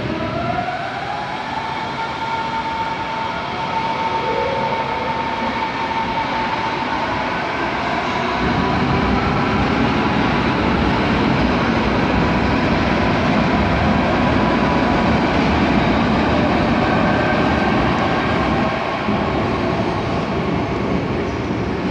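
Electric train running through a station, its traction motors giving several rising whines over steady wheel and rolling noise. The rolling noise grows louder about eight seconds in.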